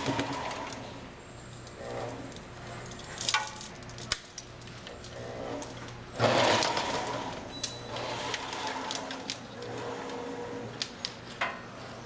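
Restored vintage (about 70-year-old) wiring-harness taping machine running, its motor humming steadily while the spinning tape head wraps tape around the harness. A short, louder burst of clatter comes about six seconds in, with a few sharp clicks here and there.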